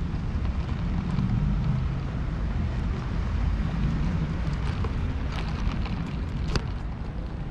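City street traffic: a steady low rumble of vehicles, with a few sharp clicks in the second half.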